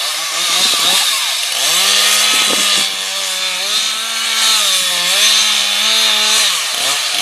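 Two-stroke chainsaw revved up to full throttle and cutting into a wood block, its engine note dipping briefly under load about five seconds in.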